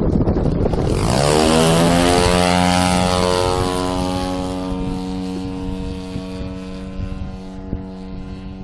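Engine and propeller of a 35%-scale Sbach aerobatic model aeroplane taking off: the engine comes up loud about a second in, its pitch rising over the next couple of seconds, then holds a steady drone that slowly fades as the plane climbs away.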